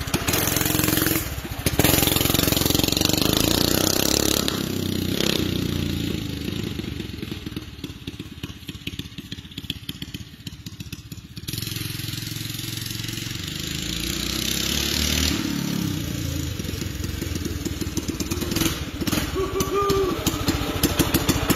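Small single-cylinder Predator minibike engine with a GoPowerSports Stage 2 kit and a damaged exhaust, running a little rough. It revs loudly at first, drops back to a lower idle about five seconds in, then picks up again around the middle and rises toward the end.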